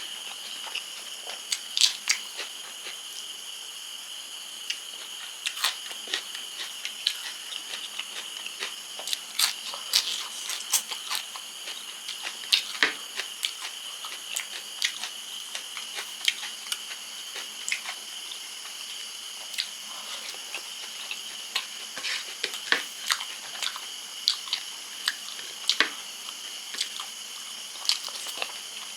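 A person chewing and biting into food close to the microphone: crisp crunches and wet mouth clicks in quick, irregular bursts.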